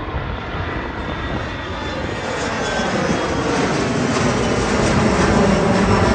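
Airliner's engines growing steadily louder as the plane approaches and passes close by.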